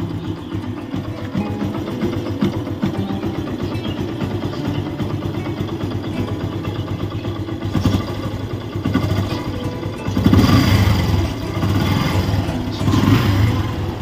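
Yamaha motorcycle's air-cooled single-cylinder engine idling steadily and running smooth after a fresh oil change, with the throttle blipped twice, about ten seconds in and again near the end.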